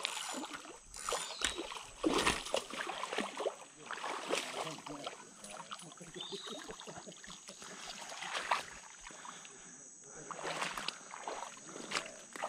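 A hooked aimara (wolf fish) thrashing in shallow water at the bank, making irregular bursts of splashing and sloshing several times as it is played and then pulled out.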